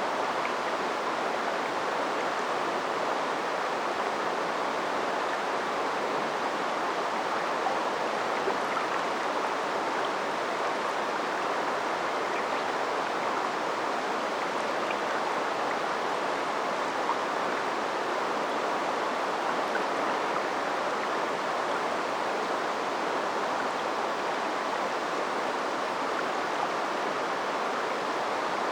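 River water flowing, a steady, even rushing sound with no break or change.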